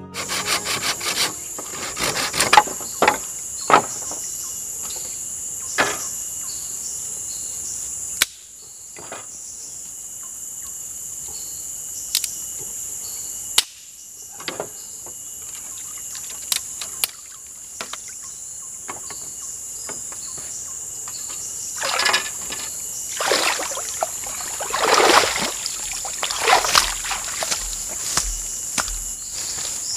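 Insects shrilling steadily in a high pitch. Scattered short knocks and clicks run through it, with a few louder noisy bursts near the end.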